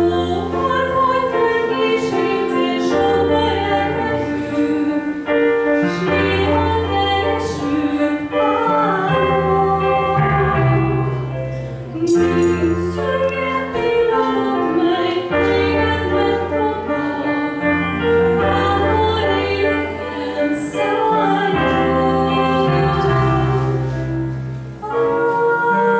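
A woman singing a slow, classical-style song into a handheld microphone, holding long notes over a recorded instrumental backing with low bass notes played through a loudspeaker.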